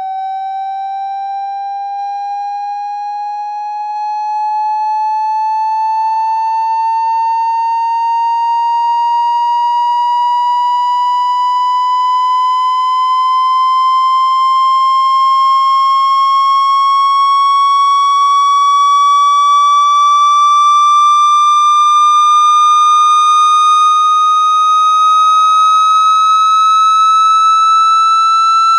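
Electronic water-eject tone for clearing water out of an iPhone speaker: one steady tone with overtones, gliding slowly upward in pitch the whole way, and getting louder about four seconds in.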